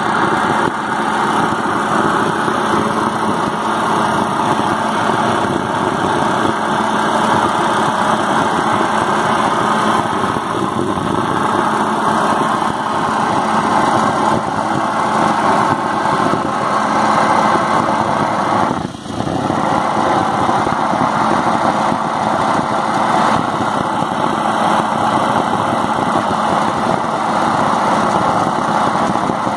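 Preheating burner of an SKV thermite rail weld, heating the rail ends inside the mould, burning with a loud steady noise that dips briefly about two thirds of the way in.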